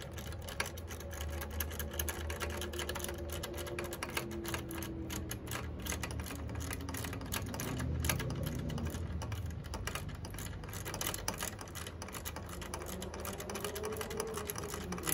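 Socket ratchet clicking in quick runs while a bolt is tightened on a motorcycle's rectifier mount, over a low steady hum.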